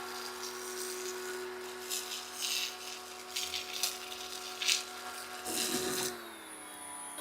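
Pressure washer running with a steady motor hum while the foam cannon sprays in several short hissing surges. About six seconds in, the motor's pitch falls as it winds down.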